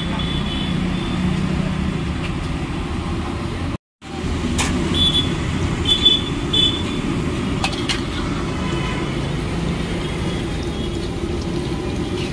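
Ghughra deep-frying in a wide iron kadai of hot oil: a steady sizzle over a low street-traffic rumble, with a few sharp clinks of the perforated iron skimmer against the pan in the middle. The sound cuts out for a moment about four seconds in.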